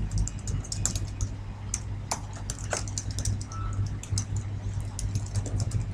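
Typing on a computer keyboard: a quick, irregular run of key clicks, over a steady low hum.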